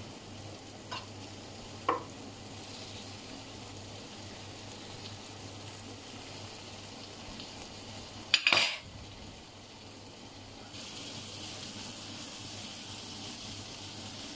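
Prawns and sofrito sizzling steadily in an electric paella pan. There are a few light clicks of metal tongs near the start and one louder sharp metal clatter about two-thirds of the way through.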